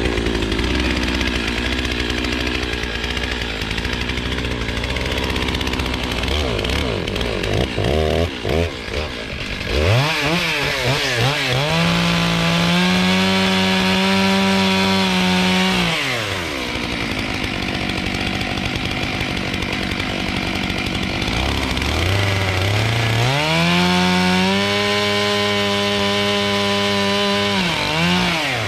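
Stihl two-stroke chainsaw running at uneven, lower revs for about the first ten seconds. It then runs up to full throttle and holds steady for several seconds as it cuts through a fir log, drops back, and runs up and holds again for a second cut near the end.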